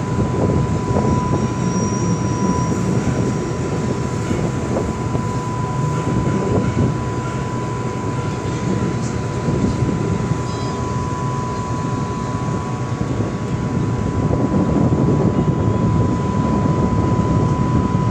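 Steady low rumble of a passenger ferry's engines and machinery heard on board, with a thin steady whine running through it.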